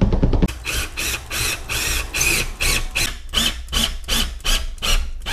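Lag bolts being driven with a power driver through a TV wall-mount bracket into a wall stud. It starts with a quick run of clicks, then gives a rapid string of short, evenly spaced bursts of about four a second.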